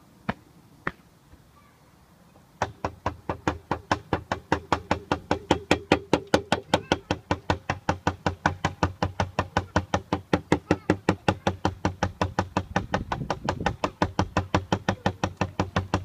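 Two single sharp knocks, then from a couple of seconds in a rapid, evenly spaced run of sharp knocks or slaps, about five a second, that keeps going without a break.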